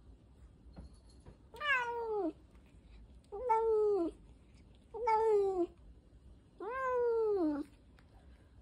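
A long-haired cat meowing four times, each meow about a second long and dropping in pitch at its end.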